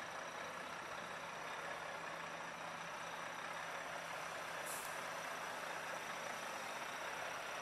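Steady faint background noise, an even hiss with a faint low hum under it that fades out about two-thirds of the way through.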